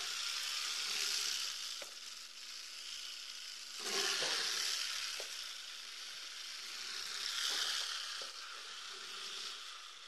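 Porcupine rattling its quills, a defensive warning: a hissing rattle that swells and fades in waves, loudest about four seconds in and again near eight seconds.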